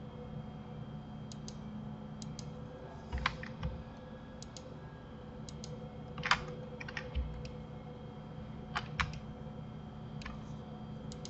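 Computer keyboard keys and mouse buttons clicking at an irregular pace, some clicks in quick pairs, over a steady low electrical hum.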